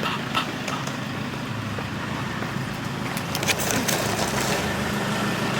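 Steady low rumble of a running motor vehicle, with a few faint clicks about three to four seconds in.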